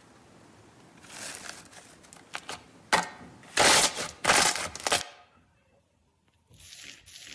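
Slime being pressed and squished by hand, giving crackling, crinkly bursts with a sharp click about three seconds in and the two loudest squishes around four seconds. The sound cuts off suddenly at about five seconds, and fresh handling noises start near the end.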